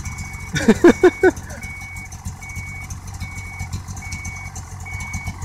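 Ski-Doo Skandic snowmobile idling with its reverse-gear warning beeper sounding: a short high beep repeating evenly, a little faster than once a second. About half a second in, a person's voice gives four quick, loud, falling calls.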